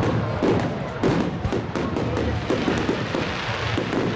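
Fireworks going off in a rapid barrage of bangs and thuds, with music playing under them.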